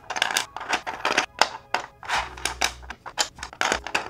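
Background music, with irregular clicks and clacks of 3D-printed plastic puzzle pieces being shuffled on the tray.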